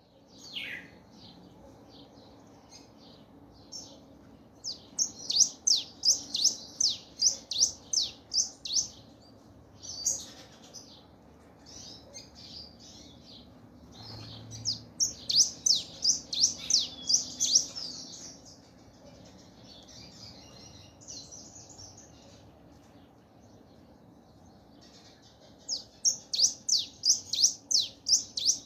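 Caged songbird known as a 'siete vestidos' singing in three long phrases. Each phrase is a run of quick, high, down-slurred notes, about three a second. Between the phrases there is softer twittering.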